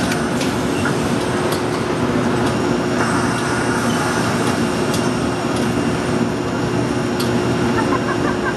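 Automatic shirt ironing machine running, its blower making a steady blowing noise with a constant hum while a shirt is inflated on the form. A few sharp clicks come through, over crowd voices in the background.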